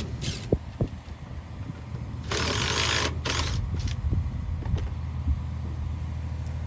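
An engine runs steadily underneath, with a few light clicks. A little over two seconds in come two short, loud blasts of hissing compressed air from an air hose blow gun, the kind used to blow dust and chaff off harvest equipment.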